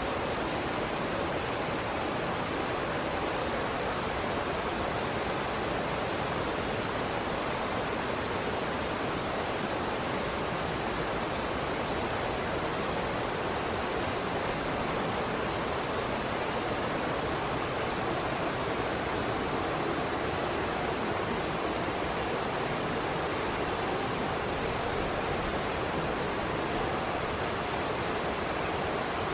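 Steady waterside ambience: an even rush of running water, with a constant high-pitched insect drone above it.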